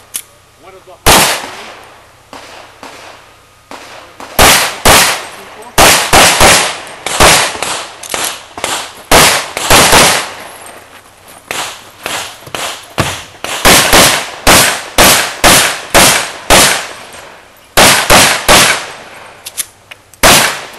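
Handgun shots fired rapidly at a practical pistol match, mostly in quick pairs (double taps) about a third of a second apart, each shot followed by a short echo. One shot early, a gap of about three seconds, then a long run of about two dozen shots with brief pauses between strings.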